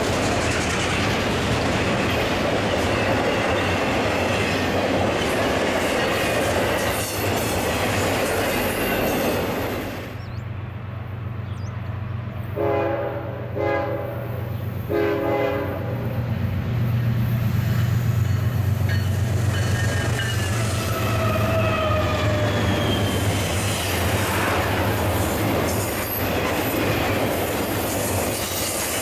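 Freight train cars rolling past with steady wheel noise. About ten seconds in, a different approaching train sounds its air horn in three blasts, then its diesel locomotives pass, loudest about eighteen seconds in, followed by flatcars carrying highway trailers rolling by with clatter and some wheel squeal.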